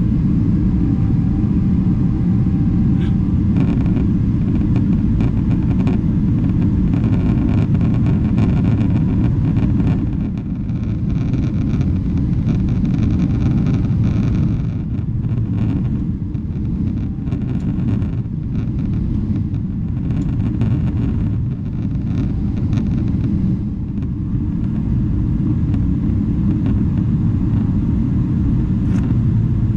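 Airliner cabin noise in flight: a steady low rumble of jet engines and airflow heard from a window seat.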